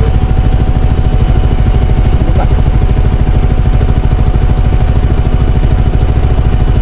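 Motorcycle engine running steadily with a fast, even pulsing beat.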